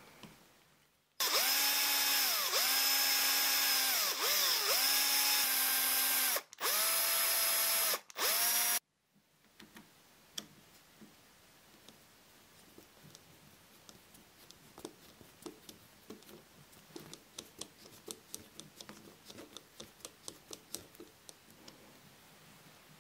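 Small electric drill motor whining in several bursts as it works on the zinc diecast base of a Matchbox Ford Cortina toy car, its pitch dipping under load and stopping twice briefly before cutting off. Afterwards, faint small clicks and ticks of tiny screws being handled and turned in with tweezers and a hand screwdriver.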